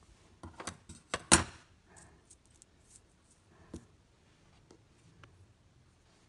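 Small clicks and taps of fishing hooks and tied hook rigs being handled and set down on a hard tabletop: a quick cluster of clicks with the loudest tap near the middle of it, then a few faint ticks and one sharper click a little later.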